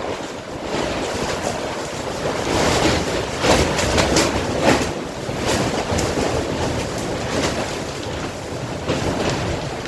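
Gale-force wind gusting hard and buffeting the microphone, with a cluster of sharp slaps or cracks about three to five seconds in.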